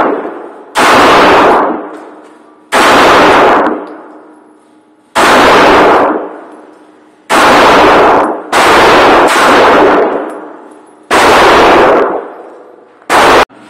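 Semi-automatic pistol fired in slow single shots, about seven in all, roughly two seconds apart, with two coming closer together just past the middle. Each loud shot rings on in the echo of an indoor range.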